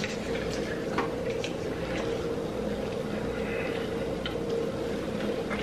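Steady hum of room noise with a few faint clicks of eating: french fries being chewed and sipping from a small milk bottle.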